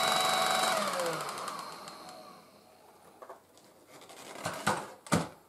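Tefal Dual Force TY6751 cordless stick vacuum running with its floor brush spinning, then switched off about a second in: the motor's whine slides down in pitch and fades away over a second or so. A few light knocks and clicks near the end.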